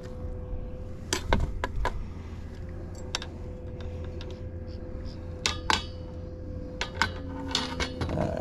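Small clicks and metallic taps, scattered irregularly, as a hook is worked out of a freshly caught fish's mouth, over a faint steady hum.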